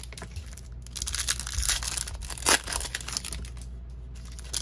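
Trading card packs from a blaster box being torn open and their wrappers crinkled by hand, with several sharp rips, the loudest about two and a half seconds in.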